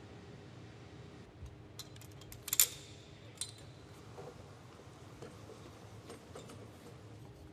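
Light metallic clicks and clinks from hand-handled test equipment, loudest as a quick cluster of clinks about two and a half seconds in and a single click just under a second later, over a faint steady hum.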